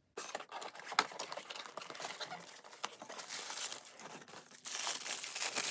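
Cardboard and paper packaging rustling and crinkling as a toy box is unpacked by hand, with scattered small clicks and knocks of cardboard; it gets louder near the end.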